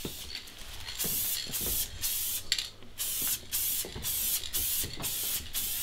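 Aerosol spray paint can spraying in a series of short bursts, about two a second, starting about a second in.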